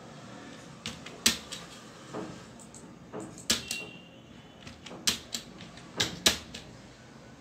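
Keystrokes on a computer keyboard and mouse clicks: about a dozen separate sharp clicks at irregular spacing, a few of them louder.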